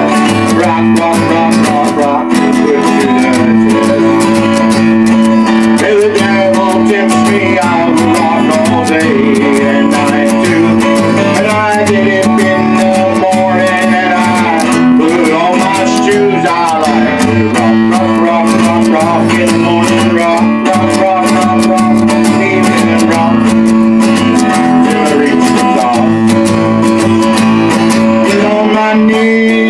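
Acoustic guitar strummed in a steady, continuous rhythm, with chords changing throughout.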